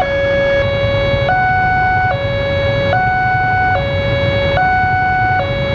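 Electronic level-crossing warning siren sounding a steady two-tone hi-lo alarm, switching pitch about every 0.8 seconds over a low rumble: the crossing is closed for an approaching train.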